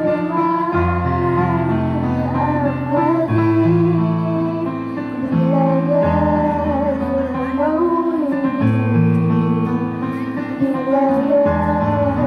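Female vocals singing a song over electronic keyboard accompaniment, the keyboard holding sustained chords and bass notes that change every second or two under the sung melody.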